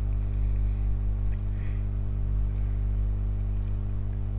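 Steady electrical mains hum with its overtones, unchanging throughout, with a couple of faint ticks about a second and a half in.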